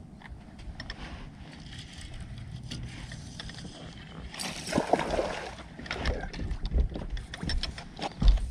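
Wind and water noise on a bass boat with a low steady hum. About halfway in, a louder burst of splashing and clicking begins as a bass is hooked and brought toward the boat, and a heavy thump comes near the end.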